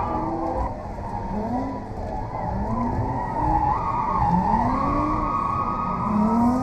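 BMW E46 drift car's engine heard from inside the cabin, revving up in separate rising surges four times as the throttle is worked through a drift, over a steady hiss of sliding tyres.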